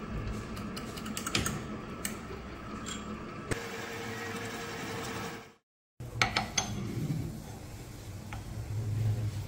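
Drill press running, its bit cutting a small hole in a brass pommel held in a vise: a steady motor hum with a high whine. The sound breaks off briefly a little past halfway, then a few sharp metal clicks come before the steady running resumes.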